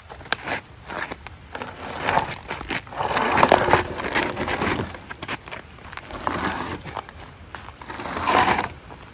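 Crackling and scraping of twigs and brush being handled and dragged, in several irregular surges with small snaps.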